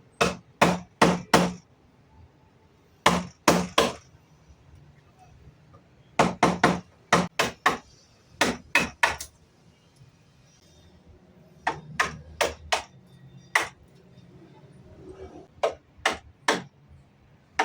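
Hammering on wood: sharp strikes in short runs of three to five quick blows, with pauses between runs.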